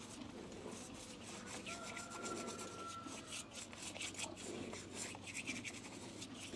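Soft, repeated rubbing strokes of a bristle brush painting hoof oil onto a freshly shod horse's hoof wall.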